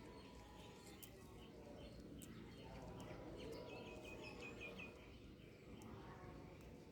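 Faint outdoor background with a bird chirping: a quick run of short, evenly spaced chirps around the middle.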